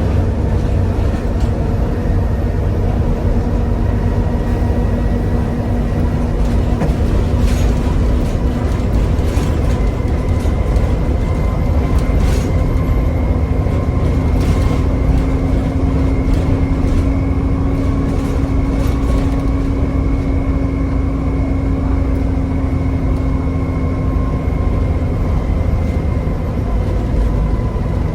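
Volvo B7TL double-decker bus driving at steady speed. Its 7-litre diesel drones and its ZF gearbox gives a steady whine that rises a little in pitch about halfway through. Short body rattles and knocks come now and then.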